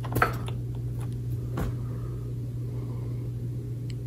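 Small plastic clicks as a power adapter's plug is pushed into an Apple iBook's power port. The sharpest click comes about a quarter-second in and a softer one about a second and a half in, over a steady low hum.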